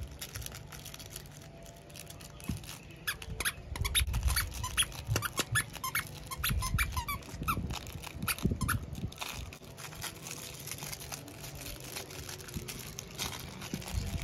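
Squeaker inside a plush banana dog toy squeaking in many quick, short squeaks as a miniature schnauzer puppy chews on it, the squeaks coming thickest in the first two thirds.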